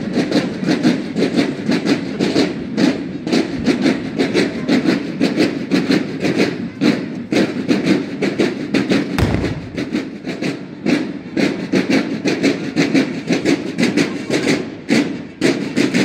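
Marching drums beating a fast, steady rhythm of sharp strokes, about five a second, over a continuous lower rumble.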